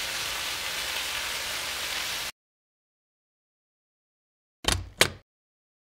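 A steady rushing hiss that cuts off abruptly about two seconds in, followed by silence and then two quick thumps about a third of a second apart.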